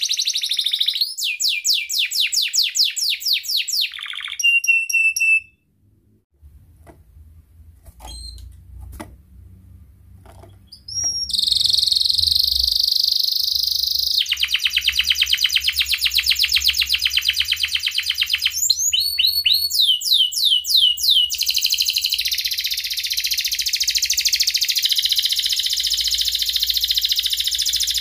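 Domestic canary singing: fast trills of rapidly repeated high notes for about five seconds, then a pause of several seconds broken only by a few faint clicks. From about eleven seconds in it sings a long, loud, unbroken rolling trill, interrupted near the middle by a short run of sharp, separate repeated notes.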